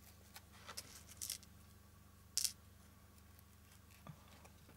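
Faint handling of ribbon and craft supplies: a few soft rustles, then one short sharp sound about two and a half seconds in, over a low steady hum.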